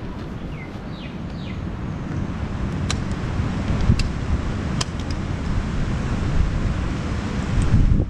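Wind rumbling on the microphone over an open-top Moke car's engine and road noise, growing louder over the seconds as the car gets going. A few sharp clicks come in the middle.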